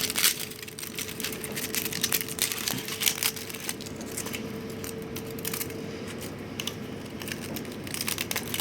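Support material being peeled and snapped off a freshly 3D-printed plastic part: an irregular run of small crackles, clicks and snaps.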